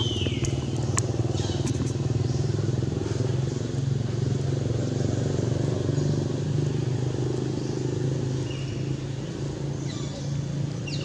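A motor engine running steadily at idle, a low hum that is the loudest sound throughout. A few short, high, falling calls come from an animal near the start and again near the end.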